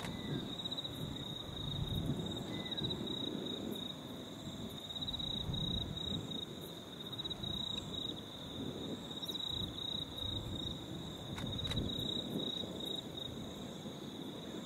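Crickets chirring steadily in a high-pitched drone, over a low, uneven rumble from a distant diesel freight train drawing closer.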